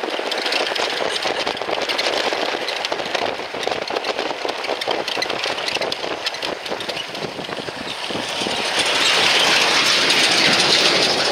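Four-wheel-drive vehicle driving on a rough dirt road, a steady noise full of rattles and crackles. About nine seconds in, a large lorry passes close alongside and the sound swells into a louder rush for a couple of seconds.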